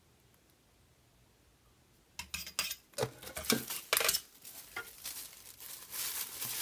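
Clear plastic packaging crinkling and rustling in irregular bursts as it is handled, with light clicks and knocks as the metal flamingo decorations are moved on a table. The handling starts about two seconds in, after a quiet start.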